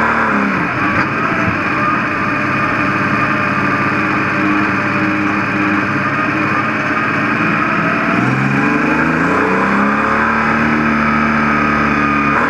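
Stockcar engine heard from inside the cockpit, running hard under race load. About eight seconds in the revs climb steeply and then hold high, with a short dip and recovery at the very end.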